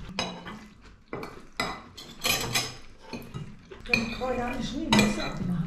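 Cutlery clinking and scraping against plates as people eat noodles, in a string of irregular sharp clinks.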